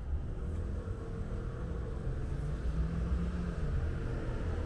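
Steady low rumble of city street traffic, with a faint engine-like hum rising a little in the middle.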